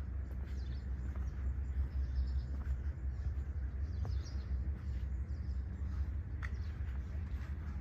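Small birds chirping faintly over a steady low rumble, with a few soft clicks.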